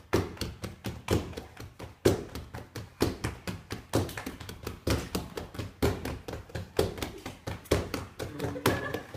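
Hands clapping and tapping out a rhythm, a steady beat with a stronger hit about once a second and quicker, lighter taps in between.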